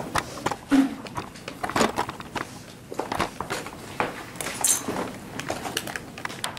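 Scattered irregular knocks, clicks and rustles from a camera being handled and settled into place. About two-thirds in there is a brief high squeak of a whiteboard marker.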